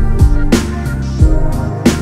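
Background music: sustained instrumental tones with a beat of drum hits.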